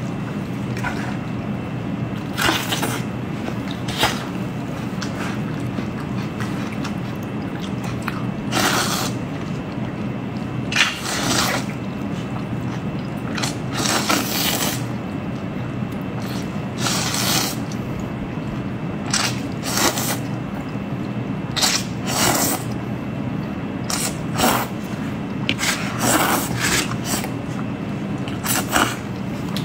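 A person slurping up stir-fried noodles and chewing, with short wet slurps every second or two over a steady low hum.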